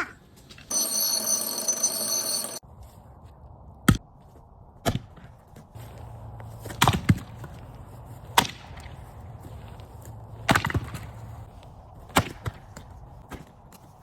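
Wood being chopped with an axe: about nine sharp strikes spread over ten seconds, some in quick pairs. They follow a loud ringing sound lasting about two seconds near the start.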